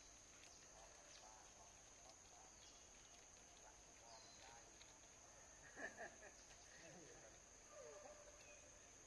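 Faint outdoor ambience: a steady high-pitched insect drone, with a few faint bird chirps, faint distant voices, and a brief louder sound about six seconds in.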